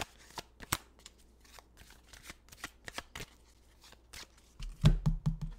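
A deck of oracle cards being shuffled by hand: a quick run of light card flicks and clicks, with a few duller knocks near the end as the deck is handled.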